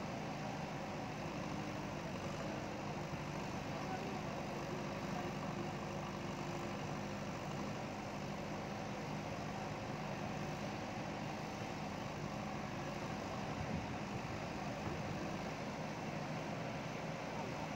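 Diesel engine of a JCB backhoe loader running steadily, holding an even pitch.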